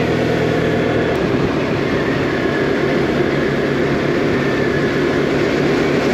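Motorcycle engine running at steady cruising speed, with road and wind noise. The engine note changes abruptly, with a faint click, about a second in.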